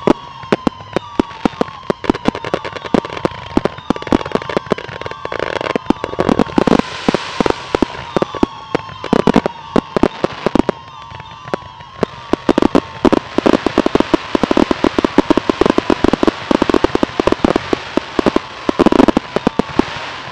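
Pyrotechnics crackling and popping in a dense, continuous stream of sharp cracks, growing busier in spells. A steady aircraft engine note runs underneath.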